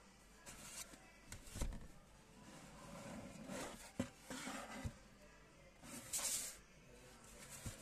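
Cardboard box being opened by hand: its lid lifted off and the box moved about, with cardboard sliding and scraping against cardboard and several soft knocks as it is set down on the table.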